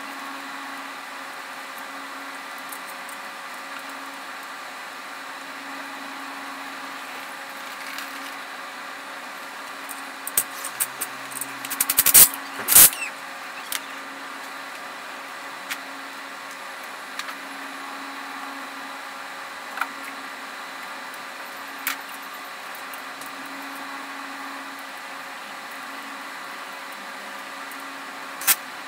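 Steady workshop hum, with a burst of close knocks and clatter from work under a van on a lift about halfway through, the loudest two a second apart. A few single sharp clicks follow later.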